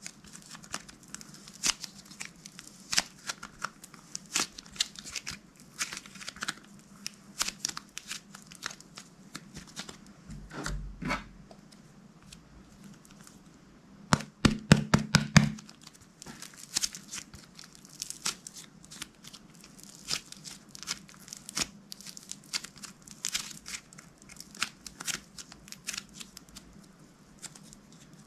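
Clear slime being squished, stretched and folded by hand, giving irregular sticky clicks and small pops, with a quick run of louder pops about halfway through.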